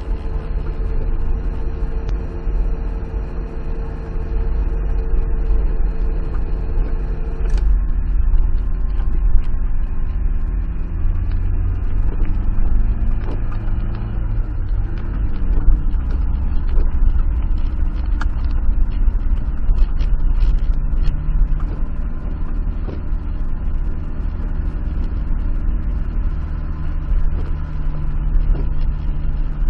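Car engine running under way, heard from inside the cabin, over tyre noise on a wet road. About seven seconds in the engine tone drops suddenly, and it glides and changes pitch again a few seconds later.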